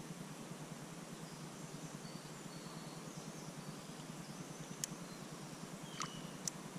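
Faint birdsong, short high chirps, over a steady outdoor hiss, with three sharp clicks near the end.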